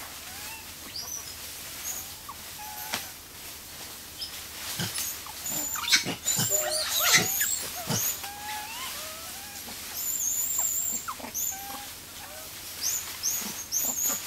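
Many short, chirping animal calls that rise and fall in pitch, some high and some lower, with a few sharp clicks around the middle and a high buzzing chorus that comes and goes.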